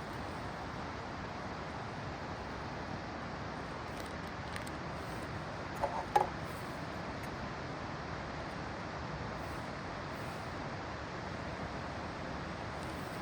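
Steady rushing of a nearby waterfall, with two light clinks close together about six seconds in.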